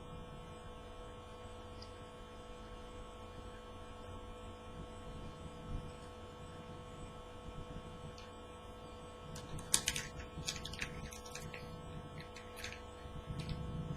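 Steady electrical mains hum, with a short run of crackling clicks about ten seconds in.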